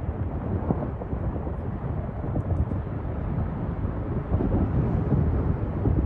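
Distant low rumble of a Boeing 737 MAX 8's CFM LEAP-1B jet engines on the takeoff roll, with gusts of wind buffeting the microphone.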